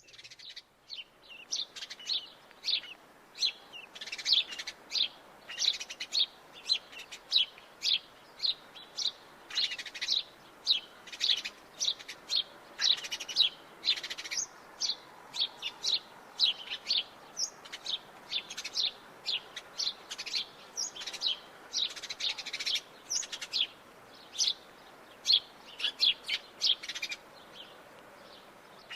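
House sparrows chirping: a dense run of short, sharp chirps, several a second, over a faint steady background hiss.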